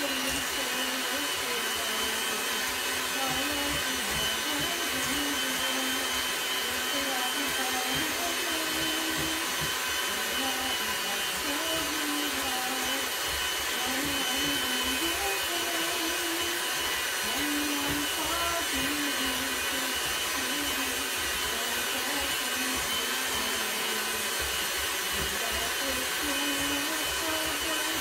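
Handheld electric mixer running steadily, its beaters working dough in a stainless steel bowl. A woman's voice sings faintly beneath it, nearly drowned out.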